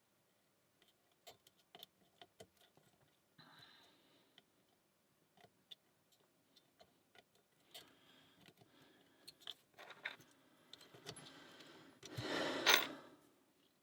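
Lock pick and tension tool clicking and scraping inside the keyway of a small pin-tumbler padlock (Alpha 1000, 20 mm): irregular light metallic ticks with short scrapes, while the picker believes he is oversetting the last pin. About twelve seconds in comes a louder scraping rattle lasting about a second.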